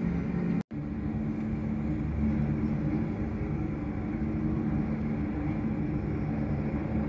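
Helicopter running on its helipad, heard from a distance: a steady low rumble with a hum. Under a second in, the sound drops out completely for a split second.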